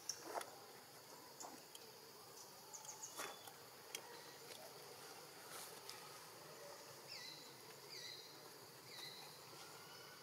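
Faint outdoor ambience: a steady high-pitched insect drone with scattered light clicks and rustles. In the second half a bird gives three short falling calls about a second apart.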